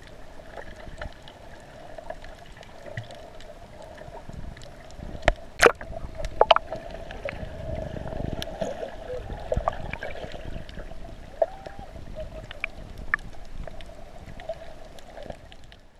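Water gurgling and sloshing over a steady hum, with a few sharp clicks or knocks around the middle.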